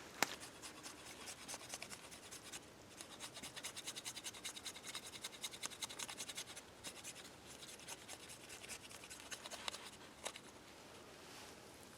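Rapid scratching strokes of bark being peeled and scraped from dry, dead plant stalks to make fire tinder, several strokes a second with a few short pauses, fading out near the end.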